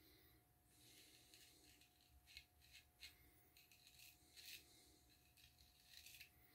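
Faint scraping of a Friedr. Herder straight razor cutting through lathered beard stubble, in a series of short strokes.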